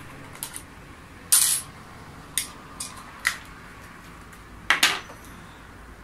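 Scattered sharp clicks and small hard clinks, about eight in all, the loudest about a second in and near the end. They come from the plastic terminal cover and its wire retaining clip being taken off a hermetic refrigerator compressor, and from screwdrivers being handled on the tabletop.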